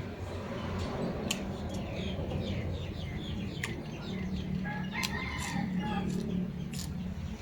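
A rooster crows once, a long call starting about four and a half seconds in, among the short chirps of small birds and over a steady low hum.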